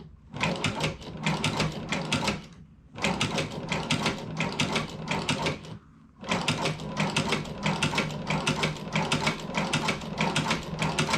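Hand-crank leather sewing machine stitching through leather: rapid, even mechanical clicking as the needle cycles, in three runs with two brief pauses about three and six seconds in.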